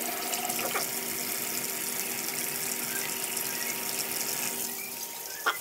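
Kitchen tap running into a stainless steel sink while hands are washed under it: a steady rush of water with a faint steady hum beneath, easing off near the end.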